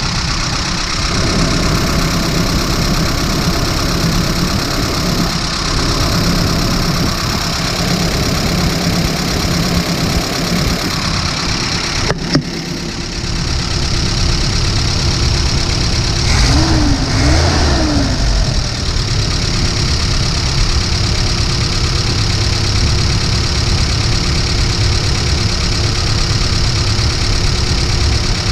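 1991 Mazda B2200's carbureted four-cylinder engine running steadily at idle, now starting and running on a temporary inline electric fuel pump. There is a brief break about twelve seconds in.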